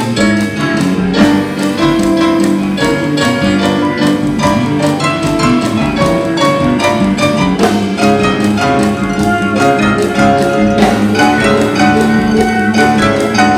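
Live band playing an instrumental passage: piano, electric guitar, bass guitar and drum kit, with no singing.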